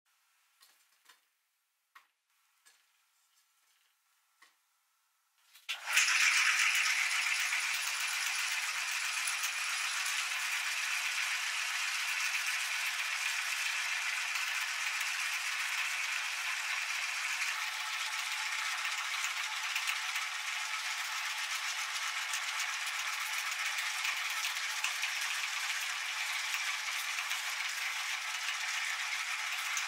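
After a few faint clicks, a meat grinder starts about six seconds in and runs steadily as it grinds whole cucumbers through its perforated plate.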